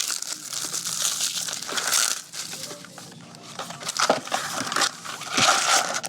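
Plastic wrapping crinkling and tearing as a sports card hobby box and its packs are opened, in three rustling spells.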